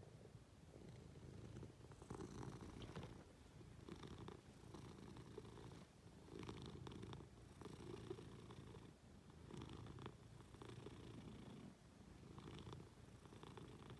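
Munchkin cat purring close by, a quiet, steady low purr that swells and dips with each breath, about every two to three seconds.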